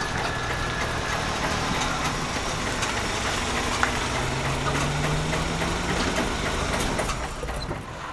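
Toyota Corolla sedan's engine making a loud, rough noise as the car pulls in slowly, with a hum that rises a little about halfway through. This is the weird, awful noise the owner has called a mechanic about.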